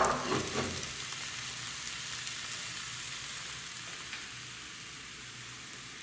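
A thin blin frying in a pan greased with olive oil: a steady hissing sizzle, a little louder in the first second and gradually quietening.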